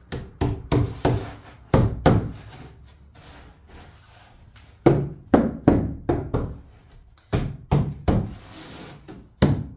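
Hollow wooden knocks and thumps in quick runs of three to five, a few a second, as a man shifts and works on top of a wooden workbench. A brief hiss comes about eight seconds in.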